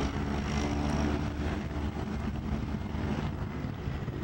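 Propeller engines of a floatplane water bomber running as it skims across the lake on its floats, the drone fading as the plane draws away.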